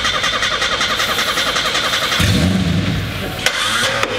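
Starter cranking the engine of an old Nissan R31 Skyline with a fast, even ticking. About two seconds in the engine catches briefly, its note rising and then falling away as it dies.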